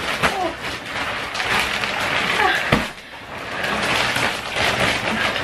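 Clear plastic mattress wrapping crinkling and rustling as a person shifts and crawls across a mattress still partly covered by the sheet. There is one sharp knock a little under three seconds in.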